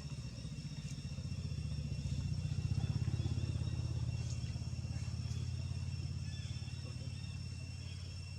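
A motor vehicle's engine passing by: a low hum that grows louder to about three seconds in, then slowly fades, over steady high insect trilling.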